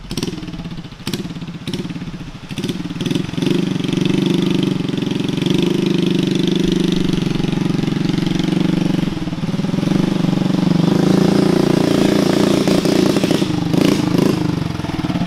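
Predator 212 single-cylinder four-stroke engine on a mini chopper motorcycle, ridden toward the microphone and growing louder as it nears. The engine note pulses unevenly at first, then runs steadily, easing off briefly about nine seconds in before picking up again.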